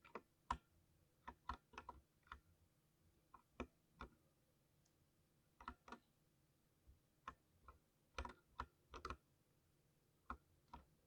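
Keystrokes on a thocky mechanical keyboard. Keys are pressed singly and in small quick runs, with irregular pauses between them.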